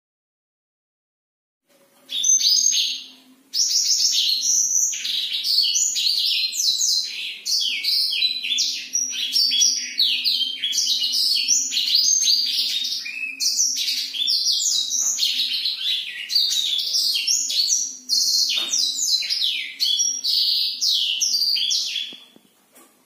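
A caged black-throated canary (blackthroat) sings a long, fast, unbroken run of high twittering notes. It starts about two seconds in, breaks off briefly a second later, then sings on until just before the end. A faint steady low hum lies beneath it.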